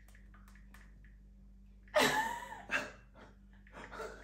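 Sudden bursts of laughter about halfway through, several in a row.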